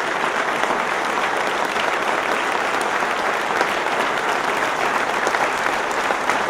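Sustained applause from a large audience clapping, dense and steady.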